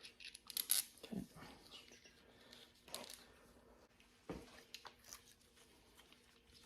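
Scattered light clicks, scrapes and a few soft knocks of hands working loose timing-chain parts (tensioner, chain guides) on a Subaru FA20 engine, over a faint steady hum.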